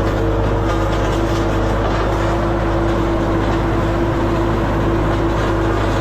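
Diesel engine of a vibratory road roller running steadily while the machine is driven, a loud, even drone with a held steady tone.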